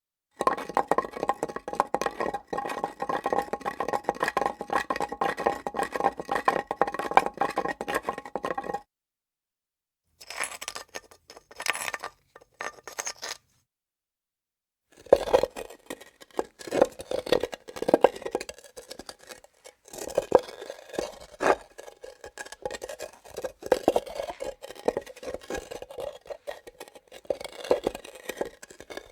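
Hard objects scraped, rolled and knocked against a granite surface, in three takes with short silences between: first a dense grinding scrape with a ringing tone, then a brief fainter scrape, then irregular knocks and drags.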